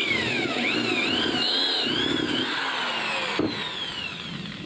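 Electric drill boring into a pine board, its motor whine wavering up and down under load. About three and a half seconds in the drill is released and the whine falls away as the motor spins down.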